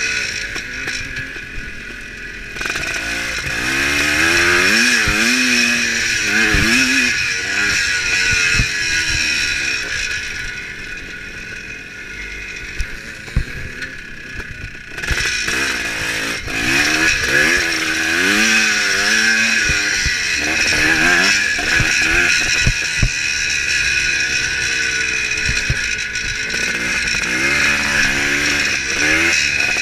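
1975 Kawasaki KX400's single-cylinder two-stroke engine being ridden hard, its revs climbing and dropping again and again as the throttle opens and closes. The throttle comes off for a few seconds near the middle. A steady rush of wind noise runs under the engine, with several sharp knocks from the bike over bumps.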